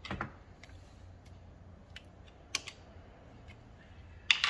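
Sharp metal clicks and knocks as a lathe's tool post is set up with a T-handle key and its clamping lever, scattered a second or so apart with the loudest near the end, over a faint steady low hum.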